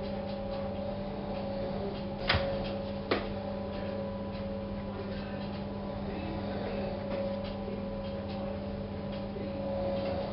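Steady electrical hum with faint scattered ticks, broken by two sharp clicks a little under a second apart, about two seconds in.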